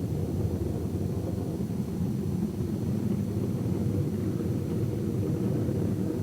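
Airliner engines running after touchdown: a steady, low rumble with no breaks.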